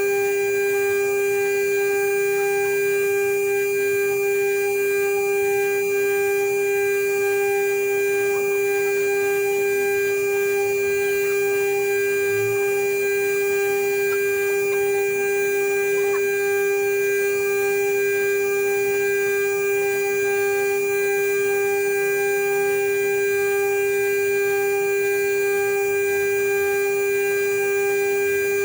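CNC router spindle running at a constant speed, a steady high whine with fainter higher overtones that holds unchanged throughout.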